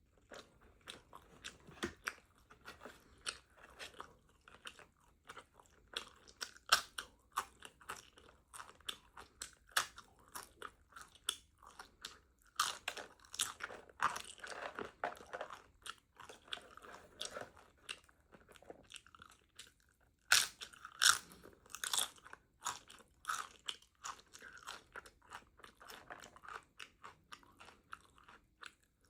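A person chewing a taco, irregular crunches coming every fraction of a second, bite after bite, with louder crunches about seven seconds in and again around twenty seconds.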